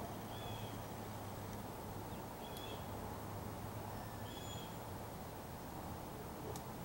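A crow pecking at food in a plastic dish: a couple of sharp beak taps, over a steady low outdoor hum, with three short high bird chirps spread through.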